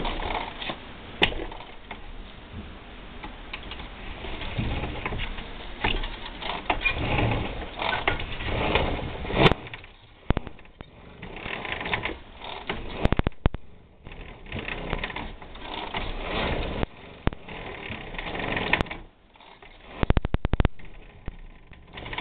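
Piaggio Ciao moped being pedalled on its stand to turn over its two-stroke engine: a mechanical clatter that rises and falls with the pedal strokes, with a run of rapid clicks near the end.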